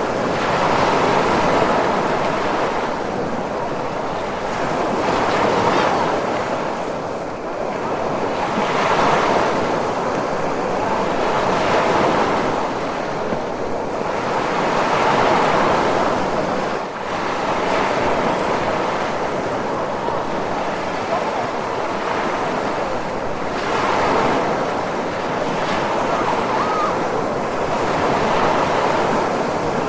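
Ocean surf, waves washing in and drawing back in a continuous rushing hiss that swells and eases every few seconds.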